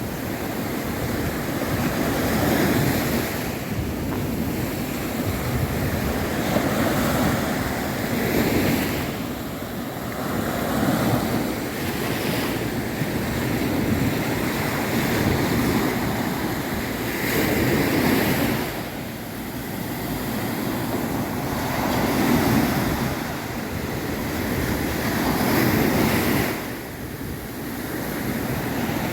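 Caribbean Sea surf breaking on a beach, waves washing in and drawing back in swells every three to four seconds, with wind buffeting the microphone.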